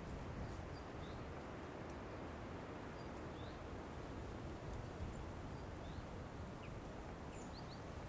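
Countryside ambience: a steady low background rush with faint, scattered short high chirps from birds.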